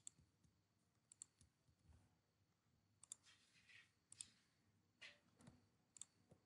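Faint, scattered computer mouse clicks over near-silent room tone, several at irregular intervals.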